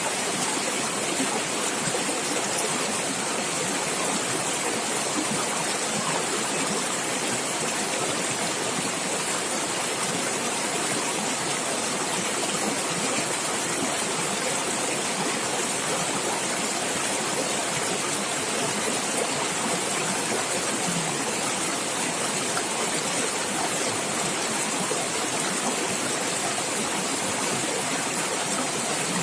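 Running water in a natural stream, a steady rushing and gurgling that holds unchanged throughout.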